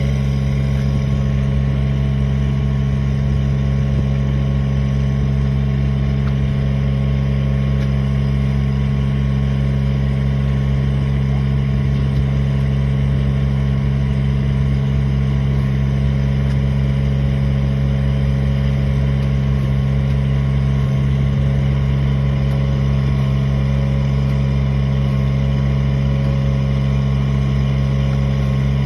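An engine running steadily at constant speed, a loud, even low hum that does not change.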